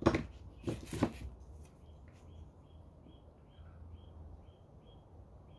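Two sharp knocks about a second apart as tools are handled on the clay-covered board. Then come short high chirps repeating about twice a second over a faint low hum.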